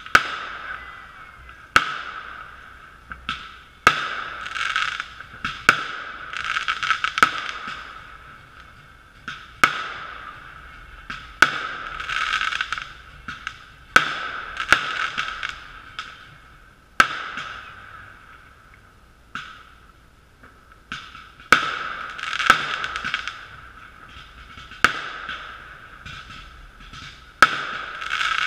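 Aerial fireworks going off one after another, a sharp bang every couple of seconds, each followed by crackling as the burst's sparks fizzle out. The sound is muffled and thin, recorded through a GoPro's sealed waterproof housing.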